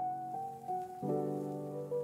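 Background music: a melody of single notes stepping over held chords, with a new chord struck about a second in.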